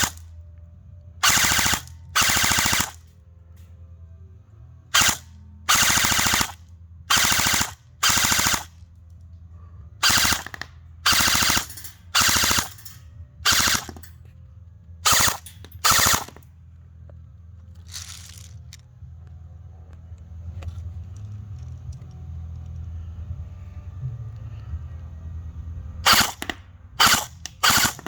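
G&G ARP 9 airsoft electric rifle with 13:1 high-speed gears firing short automatic bursts, each the rapid buzz of the gearbox cycling. About a dozen bursts come in quick pairs over the first half, then there is a pause of about ten seconds, and three quick bursts come near the end.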